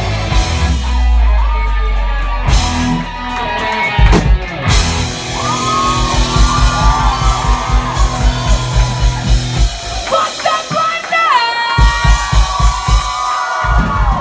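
Live punk-pop band: a woman singing lead over electric guitar and a drum kit with a steady beat. The low drums drop back for a few seconds about ten seconds in, then return.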